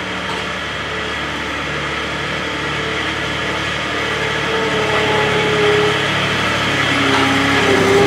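Skid-steer loader engine running as the machine drives closer, growing louder toward the end.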